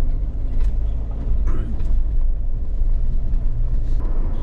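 Car driving on a rough road, heard from inside the cabin: a steady low rumble from engine and tyres, with a few faint creaks and rattles.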